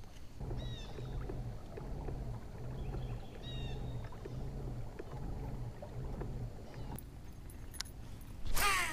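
Kayak underway, with a low, regular pulse of strokes about three every two seconds. Near the end a casting reel whirs as line pays out on a cast.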